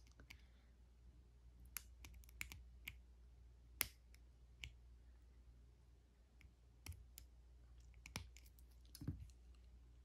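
Faint, irregularly spaced metallic clicks, about ten in all, of a lock pick and tension tool working the pin tumblers in the small key-override keyway on the back of a Master combination padlock.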